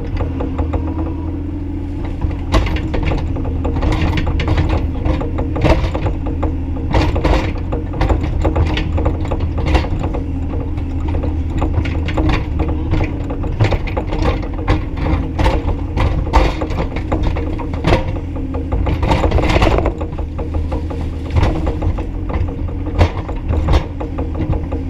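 Bobcat E35i mini excavator's diesel engine running steadily, with frequent knocks and clatter from the machine working throughout.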